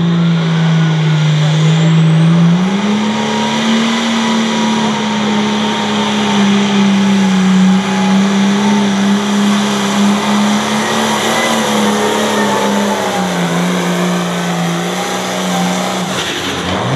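The 466 cubic-inch diesel engine of a Light Limited Pro Stock pulling tractor runs flat out under load as it drags the weight sled. Its pitch steps up a couple of seconds in and holds, drops back a little later on, and falls away near the end as the pull finishes.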